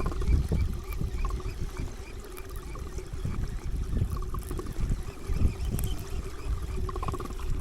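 Water trickling and sloshing against a small boat, with wind on the microphone as an uneven low rumble, a faint steady hum and faint repeated high ticks.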